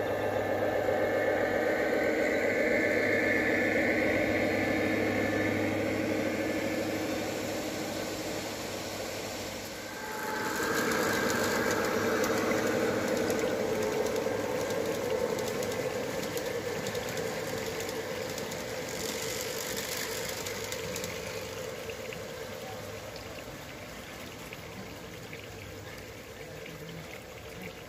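G-scale model diesel locomotives pulling a long train of hopper cars, with a steady running drone of motors and wheels on the rails. It is loudest about ten seconds in, as the train passes close, then fades as the train moves away.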